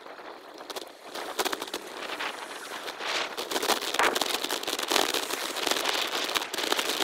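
Bicycle riding noise sped up six times: wind on the microphone and the rattle of riding over the pavement turned into a dense crackle and hiss, louder from about three seconds in.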